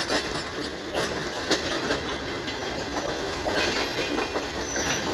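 Passenger coaches of the Hazara Express rolling along the track: a steady rumble of wheels on rail with an uneven run of sharp clicks as the wheels pass over the rail joints.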